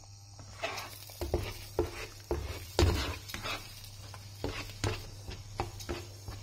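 A spatula scraping and knocking against a nonstick wok in an irregular run of strokes as beaten eggs are stirred and broken up, over a light sizzle of the eggs frying.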